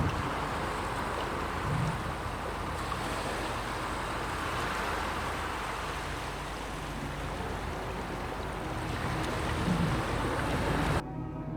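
Steady wash of sea surf and waves, cutting off abruptly near the end as music begins.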